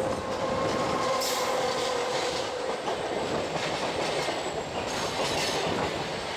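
Rolling noise of a moving train heard from an open window, with an oncoming electric locomotive and double-deck coaches passing close on the adjacent track: a rush of wheels on rail that brightens about a second in. A steady whine sounds through the first couple of seconds, then fades.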